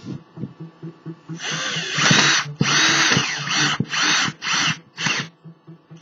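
Power drill driving a screw in a run of short trigger bursts, starting about a second and a half in, its whine rising and falling with each pull, the last bursts brief. Light knocks of handling come before it.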